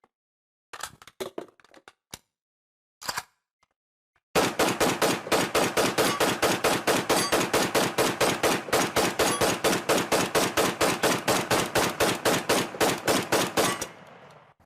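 AK-47 assault rifle (7.62×39 mm) firing on full automatic: a long, unbroken burst of rapid, evenly spaced shots lasting nearly ten seconds, dying away in a short echo. Before it come a few scattered metallic clicks and rattles.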